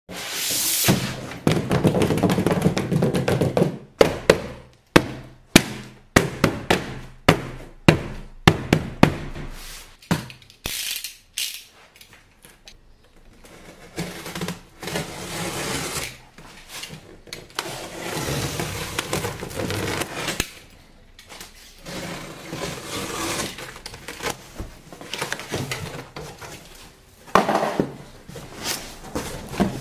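Plastic toy guns and their packaging being handled: a quick run of sharp plastic clicks and snaps, then rustling and scattered knocks.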